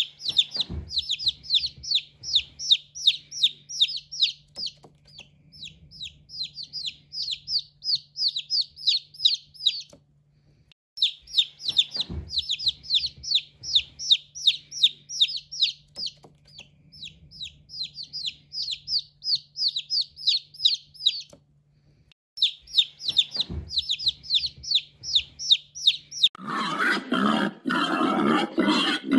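A small bird chirping in quick runs of sharp, high, slightly falling chirps, about three to four a second, broken by two short pauses. Near the end a louder, rough animal sound takes over.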